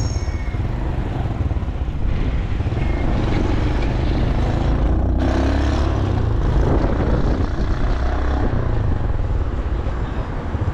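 Motorcycle running steadily through town traffic, heard from the pillion seat, with a heavy low rumble of wind on the microphone.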